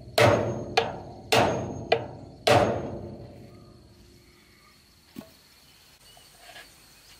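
Hammer blows on the steel wheel hub and axle of a rice threshing machine: five strikes at about two a second, alternating heavy and lighter, each ringing briefly, stopping about two and a half seconds in. A single faint click follows about five seconds in.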